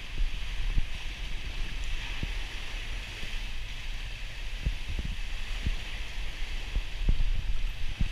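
Water lapping and slapping irregularly against the hull of a small motorboat, over a steady hiss and a low rumble.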